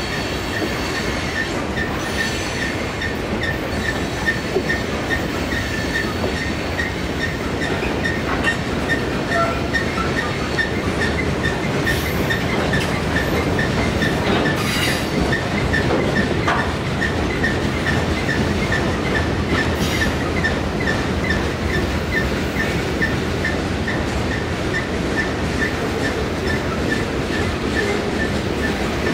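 Long mixed freight train of autoracks, covered hoppers, tank cars and boxcars rolling steadily past, with continuous wheel and rail noise. A faint high-pitched tick repeats about twice a second throughout.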